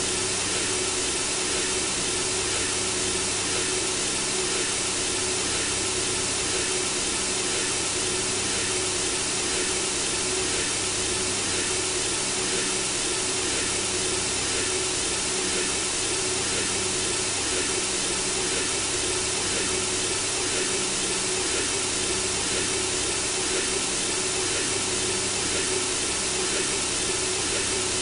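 Synthesizer-generated white noise, played as a sleep sound for a baby: a steady, unbroken hiss with a faint constant hum beneath it.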